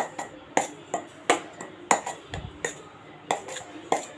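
A metal spoon knocking and scraping against a stainless steel bowl while stirring a dry flour-and-spice mix, with about eight sharp clinks at an uneven pace.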